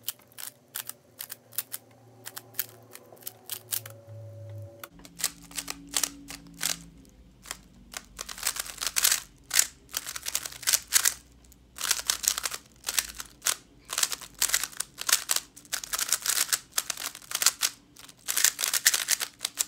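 MoFang Jiaoshi MF3RS stickerless 3x3 speedcube being turned by hand: rapid plastic clicking of its layers, sparse at first, then fast, near-continuous clicking from about eight seconds in during a timed speedsolve.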